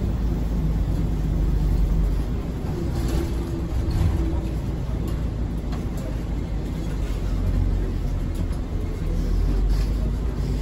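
Hiroden bus's engine and road noise heard inside the cabin: a steady low rumble as the bus drives along.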